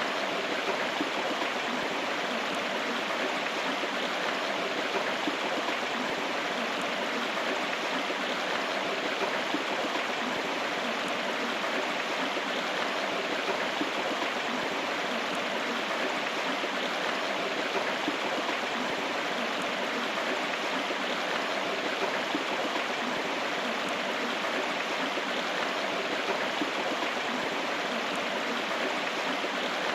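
A river flowing, a steady rush of running water with no breaks.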